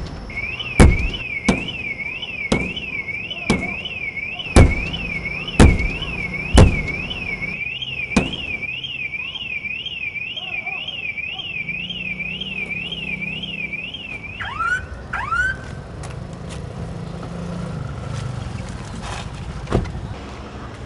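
A car alarm wails in a fast rising-and-falling warble while a car side window takes about nine heavy blows in the first eight seconds, in a staged smash-and-grab break-in. About fifteen seconds in the alarm stops with a few short falling chirps, and one more blow lands near the end.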